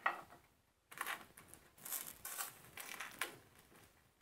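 A metal fork scraping and clicking irregularly against a toaster oven's baking tray as chicken thighs are turned over partway through roasting.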